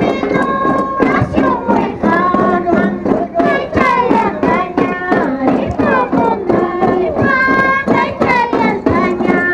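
High-pitched group singing of a Santiago festival song, the long held notes wavering, over a steady beat of small hand drums (tinyas).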